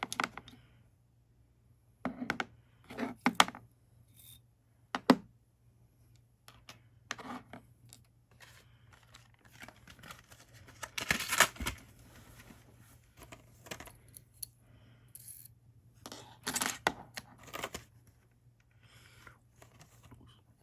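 Metal and plastic parts of a Hi-Capa 4.3 airsoft pistol clicking and clinking as they are handled and fitted together. The clicks come in irregular clusters with pauses between them, and the longest run is about eleven seconds in.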